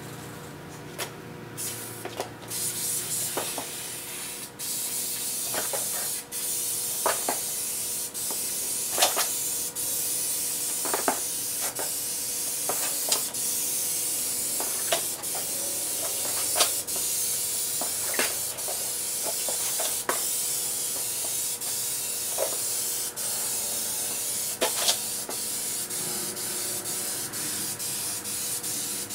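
Aerosol spray paint can hissing steadily as a coat of paint is sprayed along a car fender, starting about a second in, with brief breaks between passes and scattered short sharp ticks.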